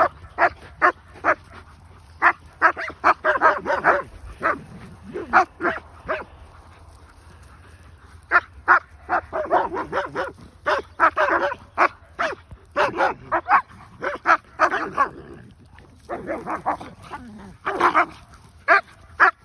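Dogs barking in rough play, in quick runs of barks broken by two short lulls.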